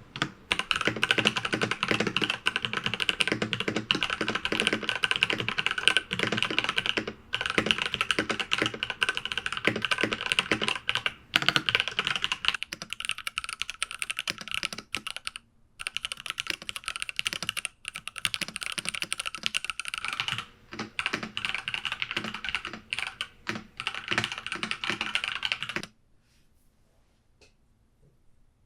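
Fast, continuous typing on an IQUNIX F65 wireless mechanical keyboard with TTC Gold Pink switches, a dense run of key clicks with a few brief pauses. The typing stops about three seconds before the end.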